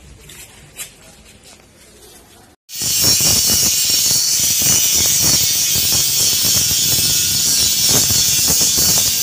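An angle grinder grinding square steel tubing, a loud steady hiss that starts suddenly about two and a half seconds in, after a quieter stretch of faint handling noise.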